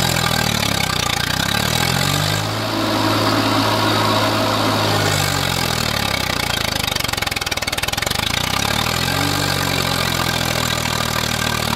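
Swaraj 744 tractor's three-cylinder diesel engine running under load as one rear wheel spins and digs into loose sand; the revs climb, hold, drop back and climb again.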